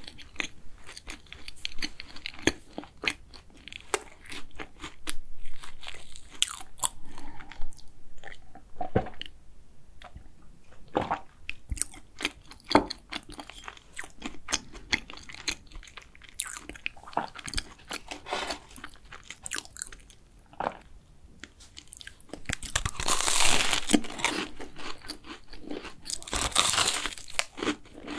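Close-miked chewing of a mouthful of pastry: a run of small crunchy clicks, wet mouth sounds and lip smacks. Near the end come two longer, louder crackling stretches, a few seconds apart.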